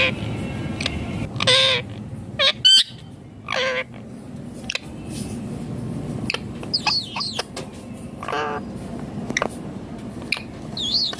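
Indian ringneck parakeet calling: a string of short, loud, harsh calls a second or two apart, with a few high whistling glides in between, over a steady low background hum.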